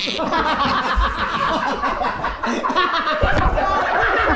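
People laughing, with several voices overlapping throughout.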